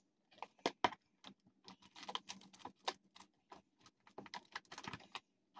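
Faint, irregular clicks and light taps from clear acrylic storage cases and a white card case being handled.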